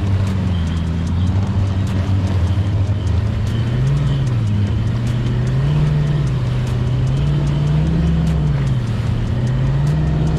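Bass boat's outboard motor running at low speed, a steady drone whose pitch rises and falls several times from about four seconds in as the throttle is eased on and off.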